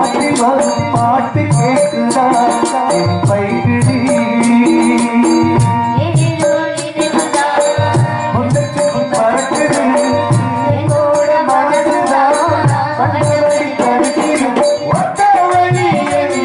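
Live Tamil folk-drama (nadagam) accompaniment: a harmonium melody over a steady beat of hand drums and small percussion, played without a break.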